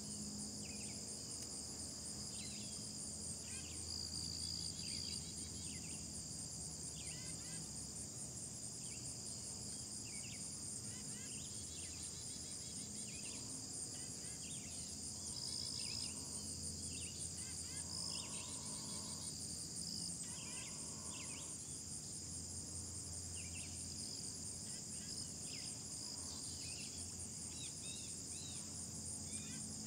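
Steady, high-pitched insect chorus trilling without a break, with many short chirps scattered through it.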